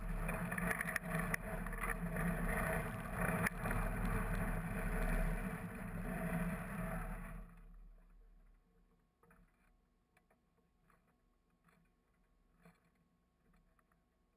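Steady background noise and a low hum in the stationary electric tram's wooden cab. About seven seconds in it cuts off abruptly to near silence, broken only by a few faint ticks.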